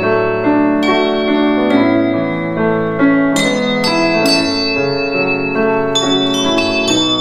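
'Prologue' practice handbells ringing a slow melody over piano accompaniment, each struck note sustaining and overlapping the next.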